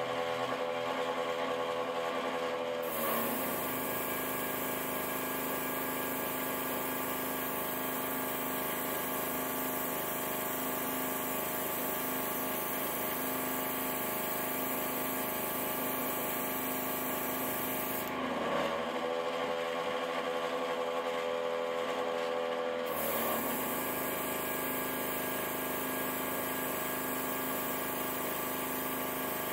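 A small airbrush compressor running steadily with a constant hum. Over it comes the hiss of the airbrush spraying paint, which starts about three seconds in, stops for about five seconds past the middle, then resumes.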